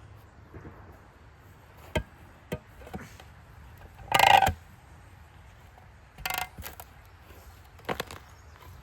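Shovel digging around a tree stump: a few sharp knocks, then three short, louder scrapes into dirt and roots, the loudest about four seconds in.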